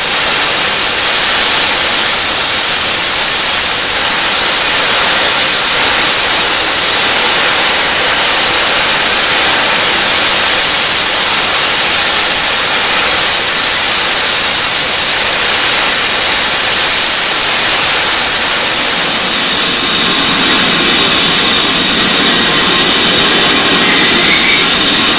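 BR Standard Class 7 'Britannia' steam locomotive 70013 Oliver Cromwell, standing still, letting off steam in a loud, steady hiss. A lower rumble joins in about twenty seconds in.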